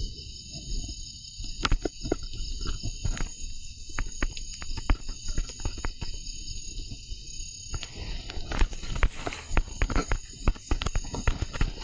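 Steady high buzzing of a forest insect chorus, cicadas or crickets. Over it come many irregular close knocks and crackles, busier in the second half, like footsteps or movement over forest ground.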